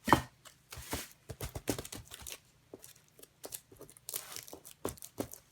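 Plastic grocery bags crinkling as they are handled, with irregular sharp crackles and tearing sounds, loudest just at the start.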